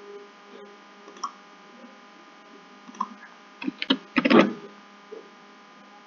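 Steady electrical mains hum, with a few faint clicks and a short cluster of louder knocks about four seconds in.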